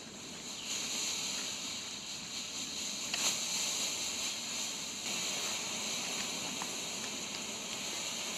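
Bright Star pull-string colour smoke grenades burning, giving off a steady hiss as the smoke vents, with a brief click about three seconds in.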